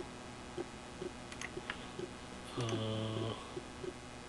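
Computer mouse clicking a few times over faint room noise, with a brief low pitched hum near the middle.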